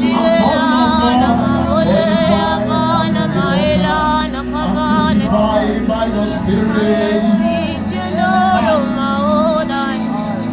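Church worship music: a voice singing in long wavering lines over a sustained low keyboard chord.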